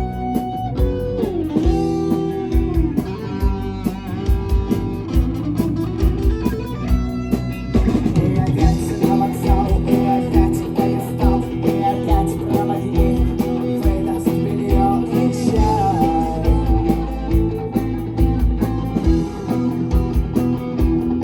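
Live rock band playing electric guitar, bass guitar and drums, with guitar lines bending in pitch over a steady drum beat. The band gets fuller and louder about eight seconds in.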